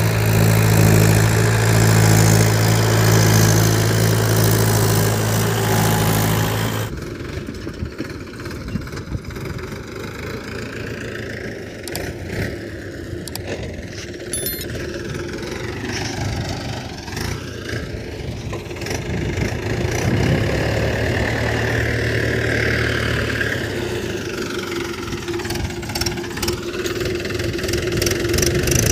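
Mahindra tractor diesel engines running under load while pulling a peanut seed drill. A loud, steady engine note cuts off abruptly about seven seconds in, giving way to a quieter engine sound that grows louder again in the second half as the tractor works close by.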